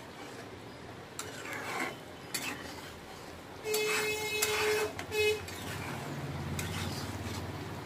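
A metal spatula stirring and scraping fish curry in a karahi: a few short scrapes, then a louder stretch with a brief squeal about four seconds in.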